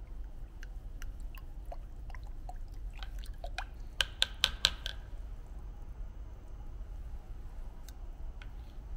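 A plastic spoon stirring a thin, watery solution of thickener in a plastic measuring jug, clicking and tapping against the jug's sides, with a quick run of louder clicks about four seconds in. A low steady hum lies underneath.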